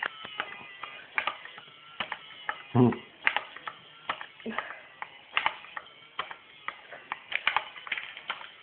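Motorised K'NEX bug running in reverse, its plastic gears and cam-driven legs clicking and clattering about two or three times a second, with one louder knock about three seconds in.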